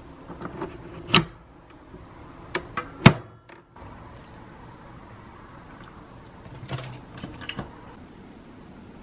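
Hard plastic clicks and clacks of a capsule coffee machine being opened and loaded, with a sharp clack about three seconds in; a few softer knocks and clinks follow near the end.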